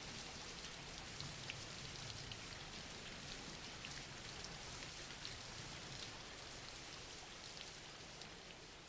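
Soft, steady rain, an even hiss with scattered ticks of single drops, faint and fading gradually toward the end.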